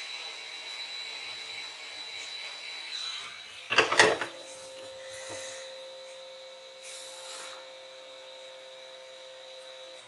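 Fingers handling a small soldered headphone jack and its wire: light rubbing, and a brief cluster of loud clicks about four seconds in. Under it runs a steady high-pitched whine that gives way to a lower steady tone after the clicks.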